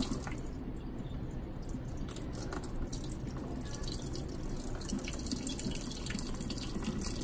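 Rinse water pouring off a tub of shredded cabbage into a stainless steel sink, a steady trickle and splash as the cabbage is drained.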